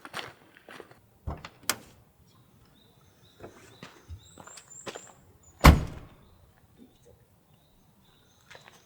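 A few light knocks, then one heavy thump about five and a half seconds in.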